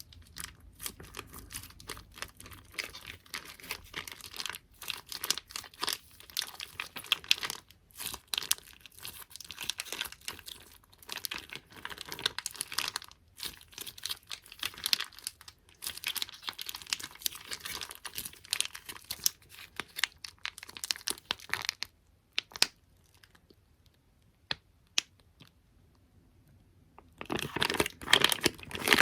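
Close-miked ASMR tapping: fingertips making sticky, crackly 'peta-peta' taps on stickers and squishy toys, in a dense, irregular run of small clicks. About three-quarters through it thins to a few faint taps, then comes back loud and dense near the end.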